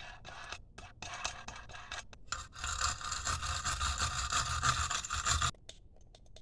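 Scraping and rattling of hands rummaging through loose hardware in search of a bolt. It starts as scattered scratches and turns into a steady scraping that stops suddenly about a second before the end.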